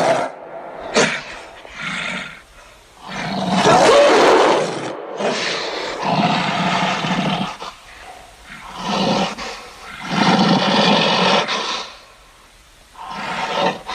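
A run of animal roars, about seven loud, rough bursts of one to two seconds each, separated by short pauses.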